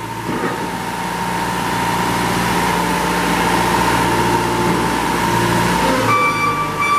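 Kubota V2003 turbo diesel of a Moffett truck-mounted forklift running under hydraulic load, with a steady whine as the reach mast is run in and out. The sound rises over the first couple of seconds and changes to a higher steady tone about six seconds in.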